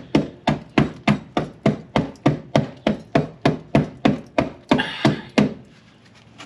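A hand tool knocking and chipping repeatedly at sprayed-on undercoating over rusted floor metal in a Range Rover Classic's footwell, about three sharp strikes a second, stopping about a second before the end.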